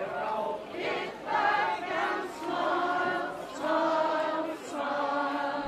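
Choir of women and men singing, about five held notes with short breaks between them.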